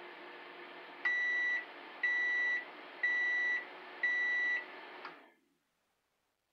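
Microwave oven running with a steady hum, then beeping four times, about one beep a second: the end-of-cooking signal. The hum dies away about five seconds in.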